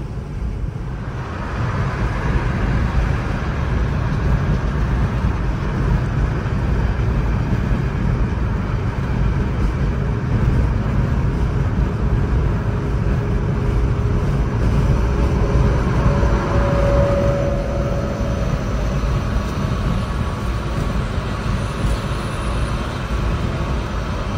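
Road and wind noise heard inside the cabin of a Chevrolet Bolt EV driving at highway speed, with no engine sound. It is a steady noise that grows louder about two seconds in as the car speeds up, then holds even.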